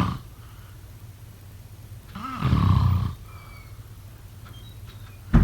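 A person snoring: one long snore about two seconds in and another beginning right at the end, over a steady low hum.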